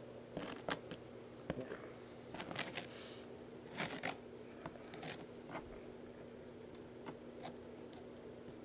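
A plastic card scraping and tapping on cardboard as powder is chopped into lines: scattered short, faint scrapes and clicks, over a steady low hum.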